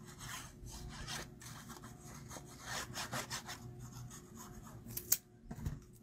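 Paper being handled and placed on a craft table: a run of irregular short scraping strokes, with a sharp click about five seconds in.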